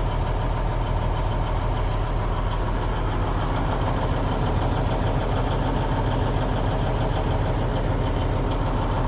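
Fuel truck's engine idling steadily, heard from inside the cab.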